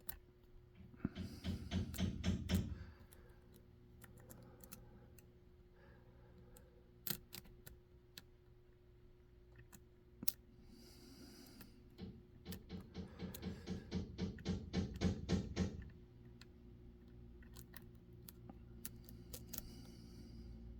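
Metal lock pick clicking and scraping against the pin stacks inside a Dom 333RN lock cylinder. There are two runs of quick repeated clicks, one about a second in and a longer one in the second half, with scattered single ticks between.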